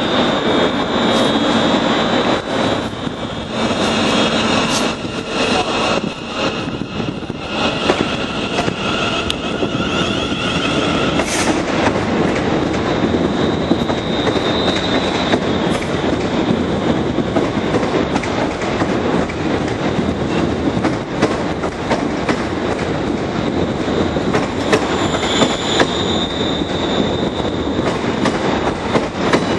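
A ScotRail Class 380 electric multiple unit running along the platform, its wheels rumbling and clattering on the rails. High-pitched wheel squeal rises and fades at times, with a steady whine partway through.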